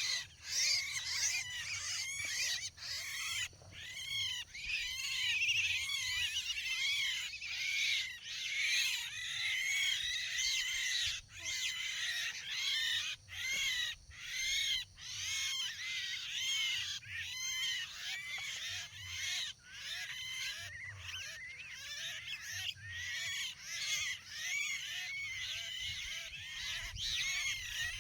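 Javan mynas (jalak kebo) chattering: many short, harsh calls overlapping without pause, as from a flock or a myna lure call.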